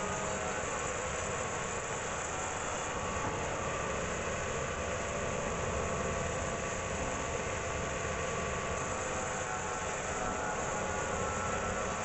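Sawmill band saw and the engine that drives it, running with a steady, unchanging drone.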